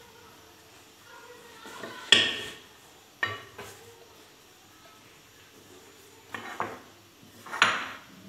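A rolling pin knocking and clacking against a granite countertop while pastry dough is rolled out. There are a few sharp knocks, the loudest about two seconds in and others near three, six and a half and seven and a half seconds in.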